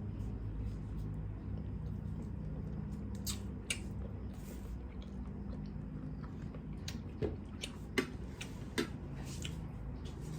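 Someone chewing food close to the microphone: a few short, sharp clicks and crunches over a steady low hum.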